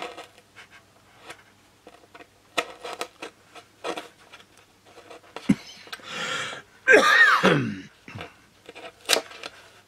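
Hobby knife cutting and scraping balsa sheet in short sharp clicks and scratches, as balsa is cut away around a plywood plate on the wing. About seven seconds in comes a louder breathy sound lasting under a second.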